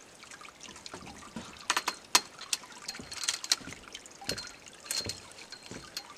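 Bare pear-tree twigs and branches being handled, giving an irregular series of sharp clicks, snaps and rustles, busiest in the first half.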